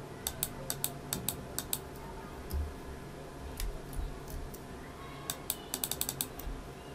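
Computer keyboard keys clicking: a quick run of about eight keystrokes in the first two seconds, a few scattered ones, then a fast burst near the end, with a couple of dull low thumps in the middle.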